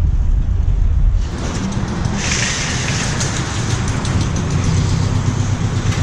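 Loaded shopping cart rolling over pavement with a heavy low rumble that eases about a second in, then a steady hiss of tyres and water on wet pavement from about two seconds in.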